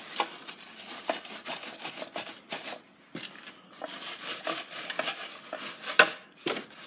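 Irregular knocks, clatter and scraping as tools and containers are handled, with one sharp knock about six seconds in standing out above the rest.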